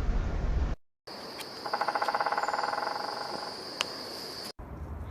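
Woodpecker drumming: a fast, even roll on wood lasting about two seconds and fading at the end, over a steady high insect buzz.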